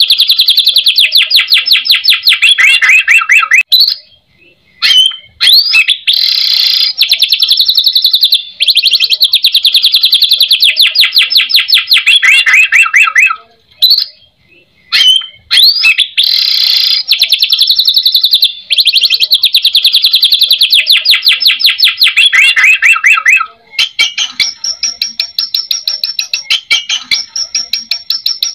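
White-rumped shama (murai batu) singing long runs of fast repeated notes, the crackling 'kretekan' style, each run lasting several seconds with short breaks between. A quicker, higher trill comes near the end.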